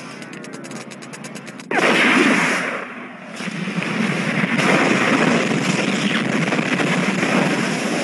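Action-film gunfire and explosion sound effects: a rapid, even train of machine-gun-like shots, then a sudden loud blast a little under two seconds in, followed by a sustained din of explosion noise.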